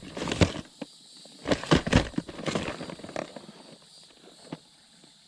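Handling noise of rummaging through fishing tackle for packs of soft-plastic lures: several brief rustles and knocks, mostly in the first half, then nearly quiet.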